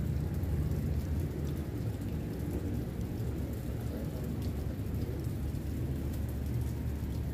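Steady low rumbling noise with a faint hiss over it and no distinct events.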